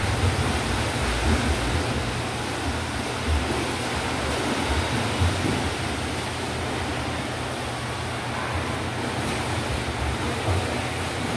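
Steady rushing and splashing of swimmers' freestyle strokes and churned pool water, with an uneven low rumble underneath.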